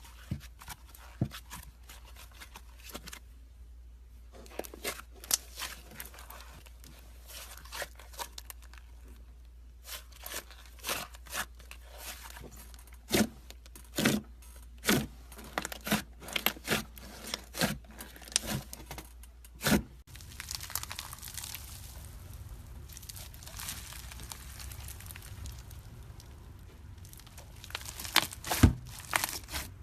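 Slime being squeezed and poked by hand: a run of sharp pops and crackles with soft crinkly squishing between them, easing into a quieter stretch before a few loud pops near the end.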